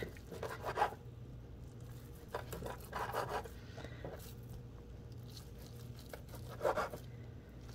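A few short, soft scrapes as a bench scraper is pressed down through a log of seitan dough onto a wooden cutting board, with hands handling the dough. A faint steady low hum lies underneath.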